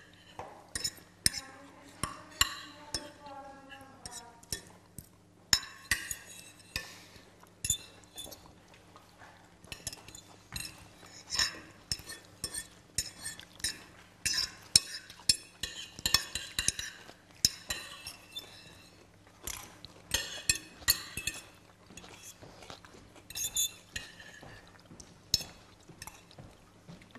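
Metal forks clinking and scraping on plates as people eat: many small irregular clicks. A brief faint murmur of a voice about two seconds in.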